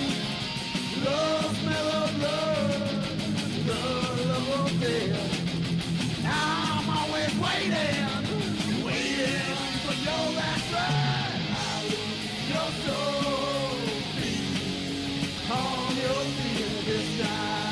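Punk rock song playing: a band with guitar and a steady drum beat under a sung vocal melody.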